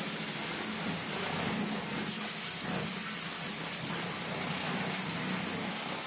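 Water from a kitchen faucet sprayer spraying steadily inside an upturned plastic storage tub onto a bowl: an even hiss.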